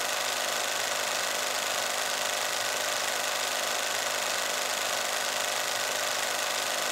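A steady, even hiss with a faint low hum underneath, unchanging in level throughout.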